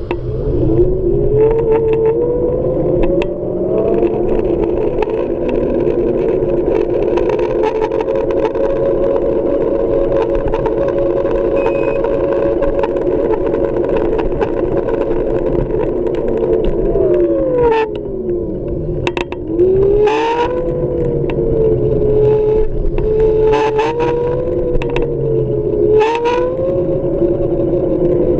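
Xiaomi M365 electric scooter's hub motor whining as it runs. The pitch rises as it speeds up, holds steady, drops as it slows about two-thirds through, then climbs and wavers again. Several sharp clicks or knocks come in the last third. The owner takes this motor noise to be abnormal.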